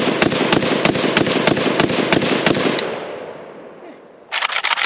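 Zastava M77-PS .308 semi-automatic rifle fired rapidly, shot after shot, with the reports echoing; the firing stops about three seconds in and the echo dies away. Near the end comes a short cluster of sharp clicks and rattles.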